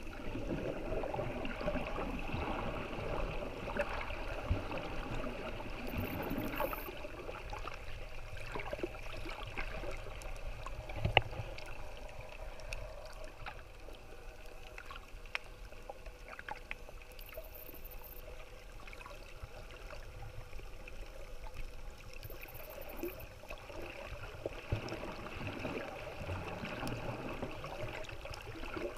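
Muffled underwater noise picked up by a camera held below the surface: a steady gurgling wash of moving water with scattered small clicks, and one sharper click about eleven seconds in.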